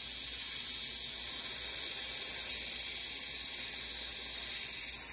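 Gas brazing torch flame hissing steadily as it heats a saw-blade tooth to braze on a new carbide tip.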